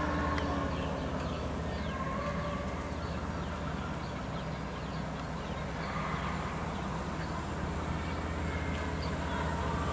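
Heavy truck's diesel engine running at a steady low drone, with many short, high, falling bird chirps over it.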